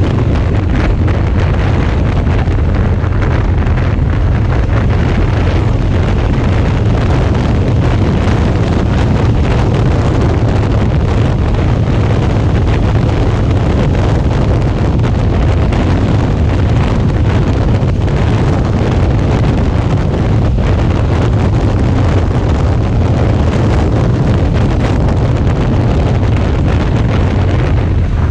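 Heavy wind rushing over the microphone of a motorcycle-mounted action camera, with the Suzuki V-Strom 650's V-twin engine running steadily at cruising speed underneath.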